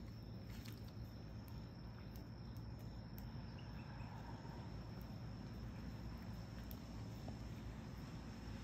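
Crickets trilling, one steady high note, over a low steady hum.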